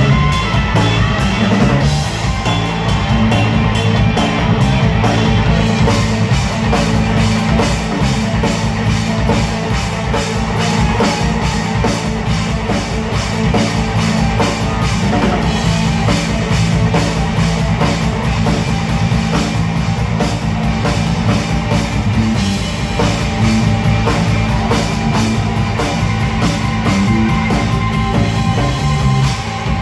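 Live rock band playing an instrumental passage: electric guitar, electric bass and drum kit together at a steady beat.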